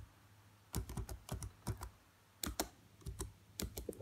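Typing on a computer keyboard: irregular runs of key clicks, with a short pause about two seconds in.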